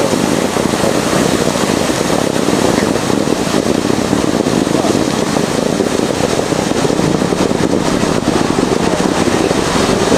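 Water jetting high out of a fire hydrant that a car has knocked off its base, a loud steady rushing spray falling back onto the wet pavement.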